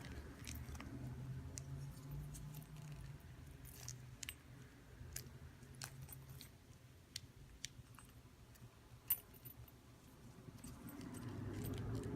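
Faint handling noises: scattered small clicks and rubbing as a loop of rubber bicycle inner tube is worked further up a watch band.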